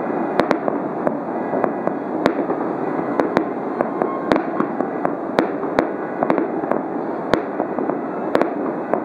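Aerial fireworks display: a quick, irregular string of sharp bangs from bursting shells, more than a dozen, over a steady dense rumble.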